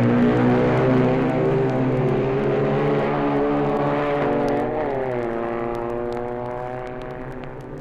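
Racing motorcycle engine at high revs going past, its pitch dropping about five seconds in as it passes, then fading. Vinyl record surface crackle ticks over it.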